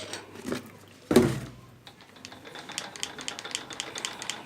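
A single sharp knock about a second in, then an even, rapid mechanical ticking, about four ticks a second, from about two seconds on.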